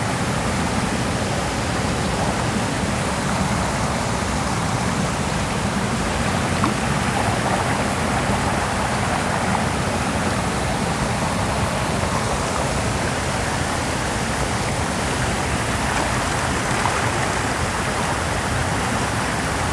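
Steady rushing water: an even, unbroken hiss that holds at one level throughout.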